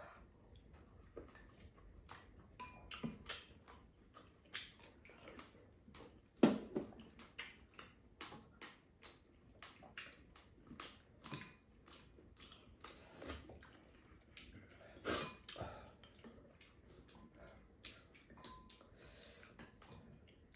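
Two people eating: chewing and mouth sounds, with spoons and chopsticks tapping and scraping against bowls and a frying pan in scattered, irregular clicks.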